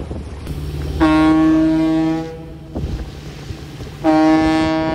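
Two long foghorn blasts about three seconds apart, each a steady tone lasting over a second, with a deeper steady horn tone sounding under the first, over a constant rumble of wind and water.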